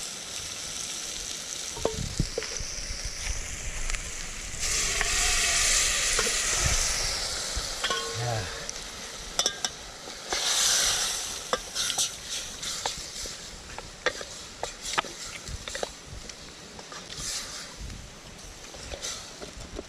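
Meat frying in hot oil in a pan, sizzling. The sizzle surges louder twice, about five seconds in and again about ten seconds in, among the clicks and scrapes of a spoon stirring.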